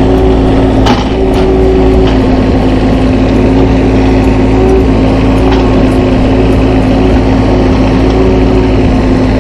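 Engine of earthmoving machinery running steadily, with a constant whine over a low rumble and a few sharp knocks, one about a second in and another near the middle.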